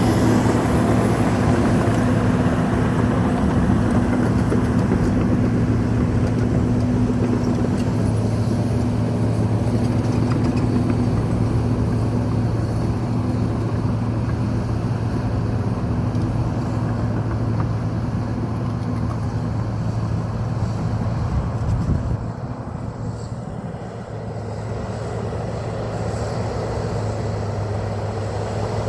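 John Deere 750J crawler bulldozer's diesel engine running steadily under load while digging sticky clay. Its level drops suddenly about 22 seconds in, then it carries on a little quieter.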